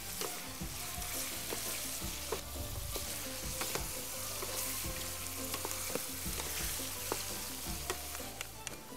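Shrimp sizzling in a hot pan as they are stirred with a metal slotted spoon, with irregular clicks and scrapes of the spoon against the pan. The shrimp are starting to change colour as they cook.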